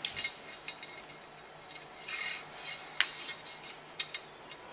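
Handling noise of a power cable being worked into the channel of a kiosk stand's upright: scraping rubs and a few sharp clicks and knocks.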